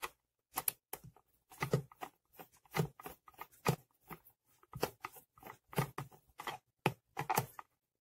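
A screwdriver turning out a screw from the plastic rear cover of a HOLT HT-IR steam iron: irregular short clicks and scrapes as the screw turns and the iron is handled.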